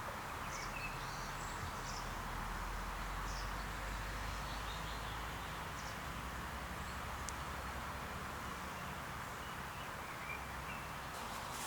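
Outdoor ambience: a steady background hiss with scattered faint bird chirps.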